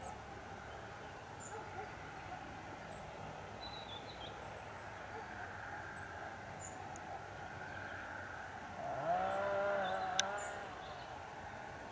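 Small birds chirping now and then over a steady background hiss. About nine seconds in, a single drawn-out call rises, holds and falls in pitch for about a second and a half, with a sharp click near its end.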